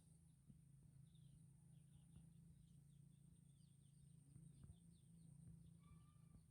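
Near silence with faint, quick bird chirps through the middle and a steady low hum underneath.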